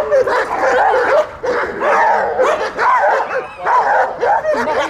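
Groenendael Belgian shepherd barking in a rapid, excited run, with high-pitched yelps and whines between the barks, as it strains at its leash.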